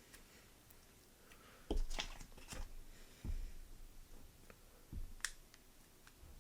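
Light knocks and clicks of small objects handled on a tabletop, about six of them scattered through, as tubes of two-part JB Weld epoxy are opened and squeezed out.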